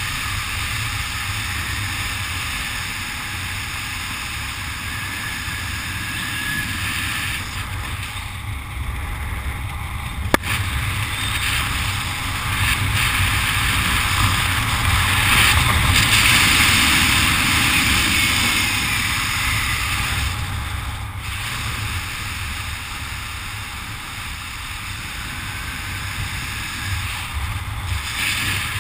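Steady wind rushing over the camera's microphone during a parachute canopy descent, swelling a little midway, with one sharp click about ten seconds in.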